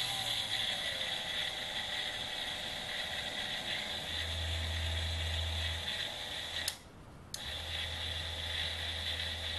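Small 72 W micro electric drill running free with a cutting disc in its chuck: the DC motor and planetary reduction gearbox give a steady whine with gear noise. Its pitch drops in the first second as the speed comes down, then holds steady. It cuts out for a moment about seven seconds in and starts again, running rough enough that it vibrates quite a bit.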